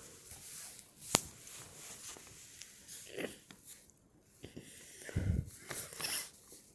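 Heavy breathing close to the microphone: several noisy breaths, the strongest about five seconds in. A single sharp click comes about a second in.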